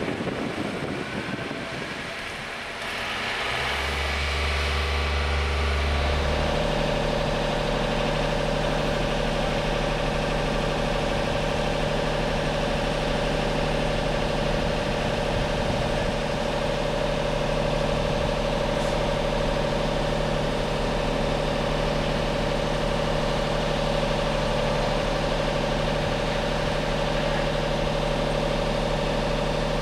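Wind on the microphone for the first few seconds, then a heavy diesel engine running steadily at idle, a constant low hum with a steady tone above it.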